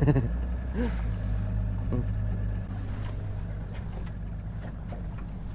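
Boat motor running steadily with a low hum, slowly getting quieter.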